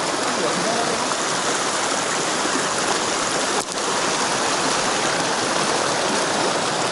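Mountain stream water rushing steadily over rocks, with a momentary drop in level about halfway through.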